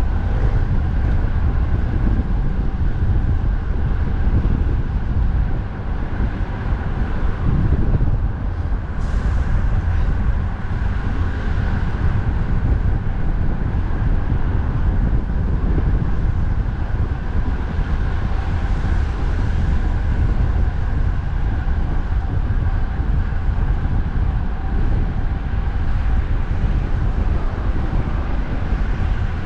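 Strong wind buffeting the microphone of a moving bicycle, a steady low rumble, over road traffic on a busy highway.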